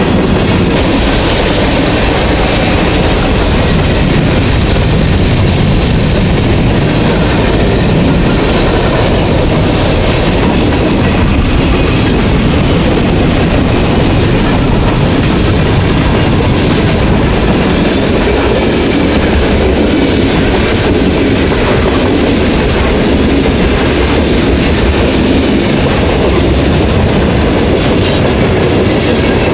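Norfolk Southern manifest freight train's cars, covered hoppers and boxcars, rolling past on steel wheels and rails: a loud, steady rumble and rattle.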